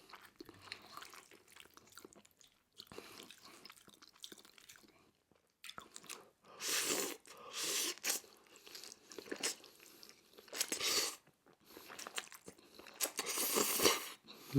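Close-miked chewing and eating mouth sounds, quiet at first, then several louder noisy bursts of about a second each in the second half.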